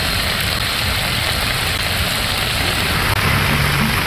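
Heavy rain pouring down on pavement, a steady dense hiss. About three seconds in, the low hum of vehicle engines in traffic joins the downpour.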